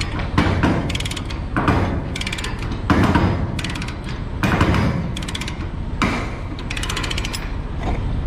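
Ratchet chain load binder being cranked by its handle to tighten a tie-down chain on a flatbed load. Its pawl clicks over the teeth in quick runs with each swing of the handle, about one run a second.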